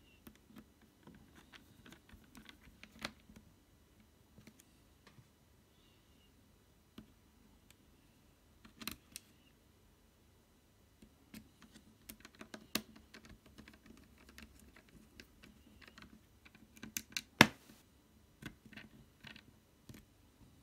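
Light clicks and taps of a small screwdriver and fingers on a netbook's plastic case and metal frame as screws are undone, in scattered clusters with one sharper click a few seconds before the end.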